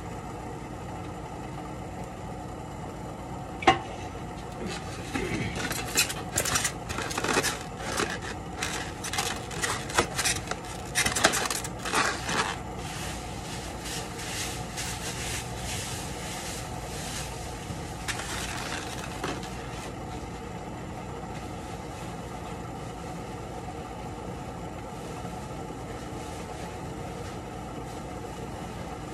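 A thin plastic bag crinkling and foam takeout containers being handled and stacked, with a sharp knock about three and a half seconds in and a dense run of crackling from about five to thirteen seconds. A few fainter rustles come near nineteen seconds, over a steady low hum.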